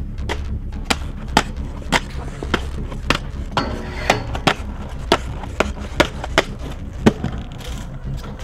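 Inline skates on concrete and metal: a run of sharp clacks from skate frames and wheels striking ledges and stairs, with a scraping, ringing grind on a metal handrail a little after three and a half seconds in.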